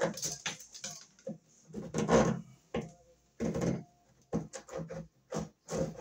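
Metal-armored MC cable being fed by hand down through a hole drilled in a wooden floor: a run of irregular scrapes and clicks as the spiral metal armor rubs against the edge of the hole and the coil shifts, with a quick flurry of clicks about four to five seconds in.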